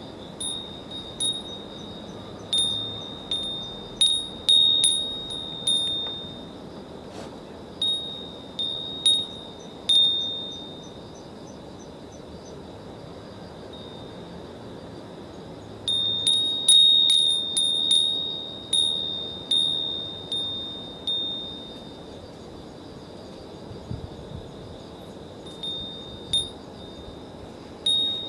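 Japanese wind bell (fūrin) ringing in the breeze: bright strikes of a single high pitch, each ringing out, coming in flurries. There is a cluster in the first few seconds, another around halfway, and a few scattered strikes near the end, with quiet spells between.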